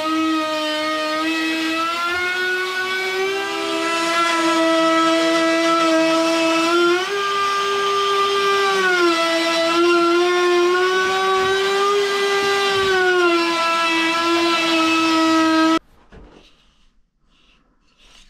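DeWalt router running at full speed under load, its bit trimming a raised plywood lip down flush with the beam. The steady high whine dips and rises slightly in pitch as the cut loads the bit, then cuts off suddenly near the end.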